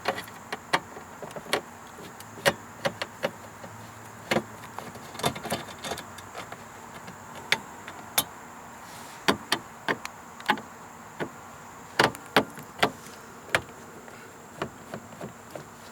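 Irregular sharp clicks and taps of a screwdriver and screws against plastic dashboard trim as the screws holding the lower dash panel are backed out.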